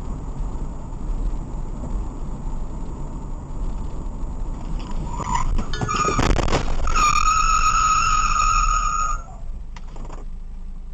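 Car driving on a highway, heard from the dashcam inside it, with a steady low road rumble. About five to six seconds in there is a short rising squeal and a few sharp knocks as the car closes on a braking car ahead, followed by a loud high steady tone lasting about two seconds.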